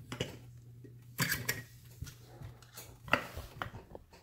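Metal clinks and knocks from a brass padlock and lock-picking tools being handled and set into a vise, in irregular clusters, with the sharpest strikes a little over a second in and again about three seconds in.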